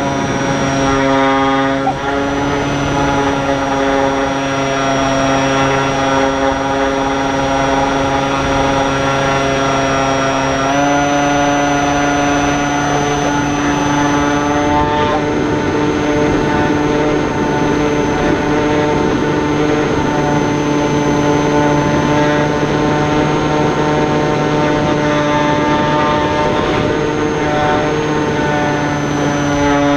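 Motor and propeller of a small R/C flying wing heard from its onboard camera: a steady buzz with a thin high whine over wind rush. The pitch steps up about eleven seconds in and again around fifteen seconds, as the motor speeds up.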